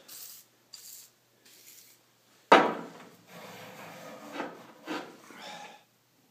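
Steel boring bar slid back and forth by hand through self-aligning bearings, a scraping metal rub with a few swells. A sharp knock about two and a half seconds in is the loudest sound.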